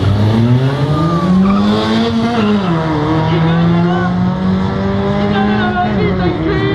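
Peugeot Partner van and Fiat Uno launching side by side in a drag race, the engine note revving up hard and falling at each gear change, about two and a half seconds in and again near the end.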